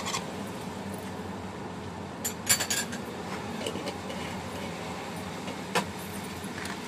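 Metal spoon clinking against a wok as curry paste is spooned and tapped off into it: a quick cluster of clinks about two and a half seconds in and a single clink near the end, over a steady low hum.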